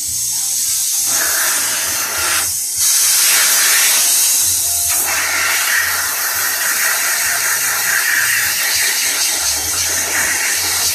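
Compressed air blasting from the open valve of a scuba cylinder in a loud, steady hiss. It dips briefly about two and a half seconds in, then comes back stronger.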